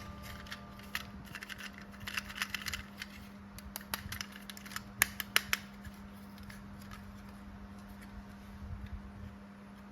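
Scattered clicks and rustling from hands handling an action figure and its plastic packaging, with three sharper clicks about five seconds in, over a steady low hum.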